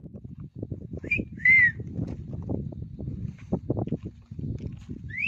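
Footsteps crunching and knocking irregularly over loose volcanic rock. About a second in come two short high whistled notes, the second loud and arching, and a quick rising whistle near the end.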